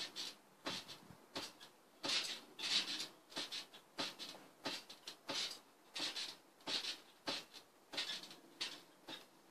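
Child bouncing barefoot on a garden trampoline: a short swishing burst from the mat and springs with each landing, about three every two seconds.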